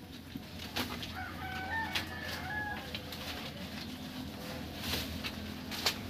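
A rooster crows once, starting a little over a second in and lasting about a second and a half, over scattered sharp knocks.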